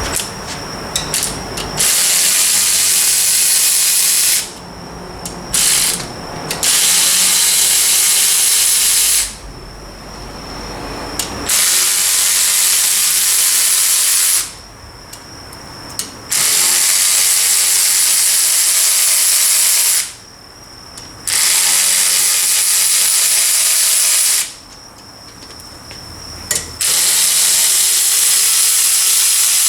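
Pneumatic wrench running in six bursts of a few seconds each, with short pauses between, as bolts are run out during a differential teardown.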